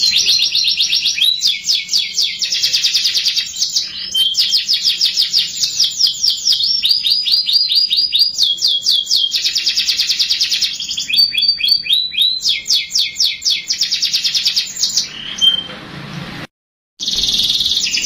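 Domestic canary singing a long run of fast trills (rolls), each phrase a rapid string of repeated notes, switching to a new phrase every second or two. The song breaks off to silence for a moment near the end, then resumes.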